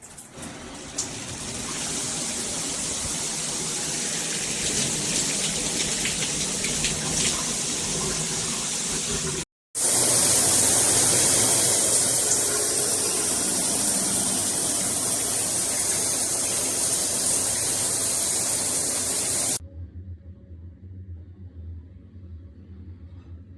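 Water spraying steadily from a Veken rain shower head and handheld sprayer, a dense hiss of falling water. It cuts off about nine and a half seconds in and comes straight back louder and brighter, then stops abruptly near the end, leaving only a low hum.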